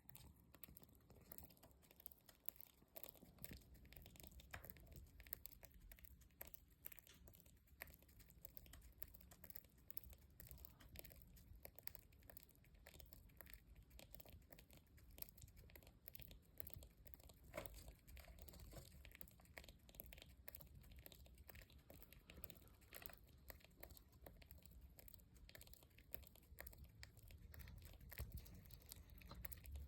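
Faint, continuous crackling and rustling, like paper crinkling.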